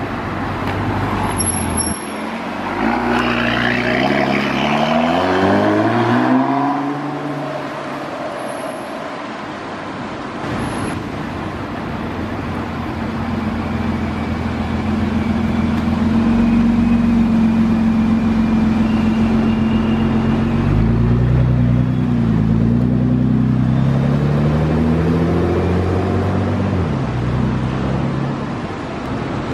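Two Nissan GT-R R35s, each with a twin-turbo V6, driving off one after the other. The first accelerates away a couple of seconds in, its engine note rising in a few steps and then fading. The second runs at a steady low note as it rolls past, then accelerates away with rising revs near the end.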